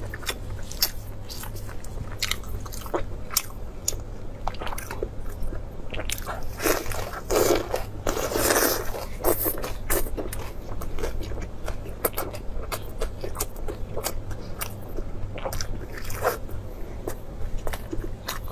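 Close-miked chewing and crunching of a lettuce-wrapped bite, made up of many short crisp crunches, with a denser, louder stretch of crunching about seven to nine seconds in. A steady low hum runs underneath.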